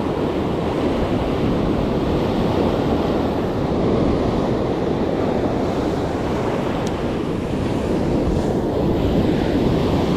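Ocean surf breaking and washing on the beach, a loud steady rush, with wind buffeting the microphone.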